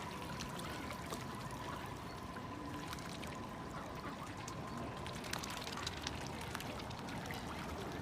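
Running water trickling and splashing, with many small drips and plops over a steady rush. A faint, steady high tone runs underneath, clearest in the first half.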